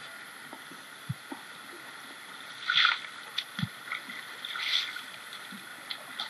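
Shovel scraping into gravel and stones in a riverbed hole, three scoops about two seconds apart, with a few dull knocks of stones, over the steady rush of the river.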